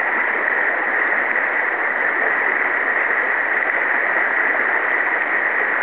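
River water flowing steadily over a shallow riffle, an even, unbroken rush of moving water.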